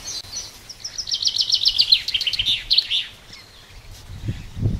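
A small songbird sings a fast run of chirps, roughly eight a second, that drops in pitch over about three seconds.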